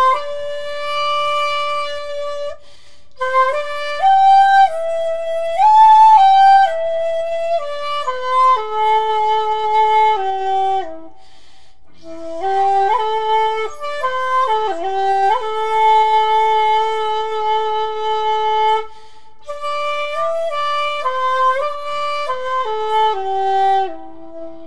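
Shakuhachi, a self-made 1.8-shaku one-piece bamboo flute, playing a slow min'yō oiwake melody. Long held notes are joined by bends and slides, in phrases broken by short pauses.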